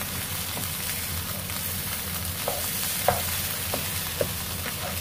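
Fried rice sizzling in a non-stick frying pan as it is stirred with a wooden spatula: a steady hiss, with a few short taps and scrapes of the spatula on the pan in the second half.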